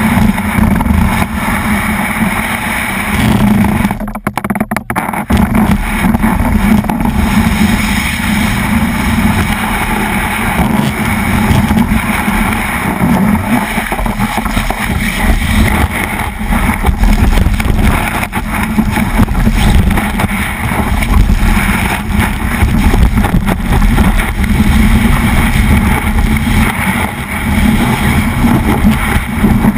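Snowboard sliding and carving over snow, a steady rumble and hiss from the board with wind buffeting the board-mounted camera's microphone. The sound drops out briefly about four seconds in.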